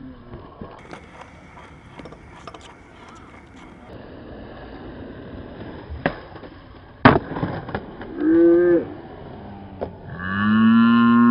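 Skateboard wheels rolling on concrete, then two sharp clacks of the board about six and seven seconds in as a trick is done on the bowl's coping. A short pitched call bends up and down soon after, and near the end a loud, steady pitched tone sets in and holds.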